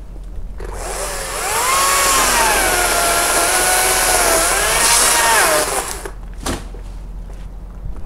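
Makita top-handle battery chainsaw cutting through a persimmon limb for about five seconds, its electric motor whine dipping in pitch as the chain loads up in the wood and rising again before it stops.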